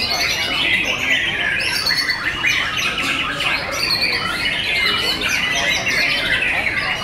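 Several caged white-rumped shamas (murai batu) singing at once: a dense, unbroken mix of loud whistled notes, quick chattering phrases and sliding calls.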